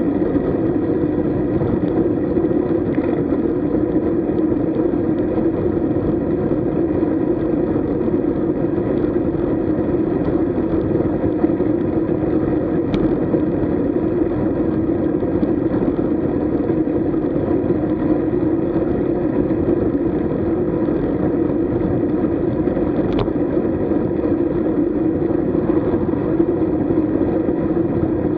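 Steady rush of wind on the microphone and tyre noise from a road bike riding at speed, with two faint clicks, one about halfway through and one later on.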